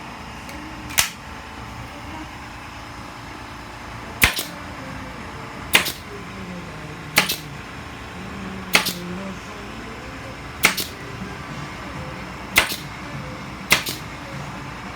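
Staple gun firing staples through window screen into a wooden door frame, eight sharp shots about one to two and a half seconds apart.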